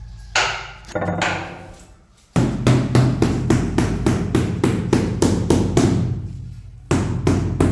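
Background music with a fast, even drum beat over a deep steady bass.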